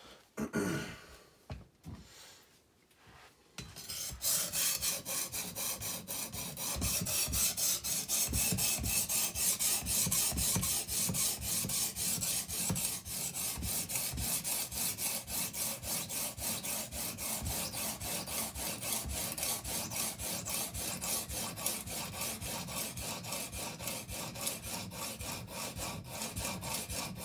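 Edge Pro Apex 80-grit diamond matrix stone, kept wet, being stroked quickly back and forth along a chef's knife blade to thin it behind the edge. A few quieter handling sounds come first, and the steady, even stroking starts about four seconds in.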